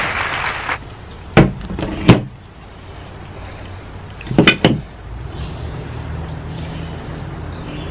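Dishes knocking on a table: two sharp knocks a little over a second in, as a plate of hot dogs is set down, then a quick pair of knocks about halfway through. A low steady rumble sets in after that.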